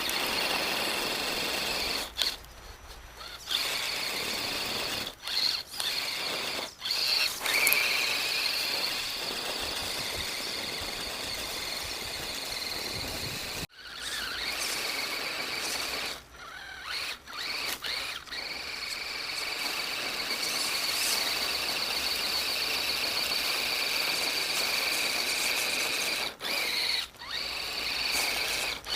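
Axial SCX10 Deadbolt RC crawler's electric motor and gear train whining at a steady high pitch, cutting out and starting again several times as the throttle is let off and reapplied.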